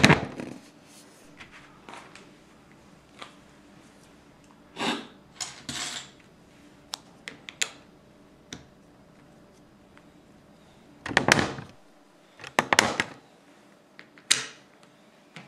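Plastic Lego tiles and plates being handled and pressed onto a plastic baseplate: scattered sharp clicks and short scraping rustles, busiest about five seconds in and again around eleven to thirteen seconds.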